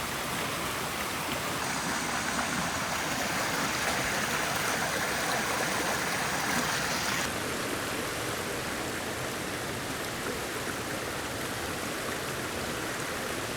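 Steady rush of a mountain creek's flowing water, with a slight drop in level about halfway through.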